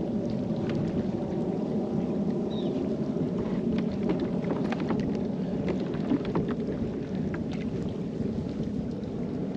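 Steady low rush of water and wind around a fishing kayak, with scattered light ticks and splashes.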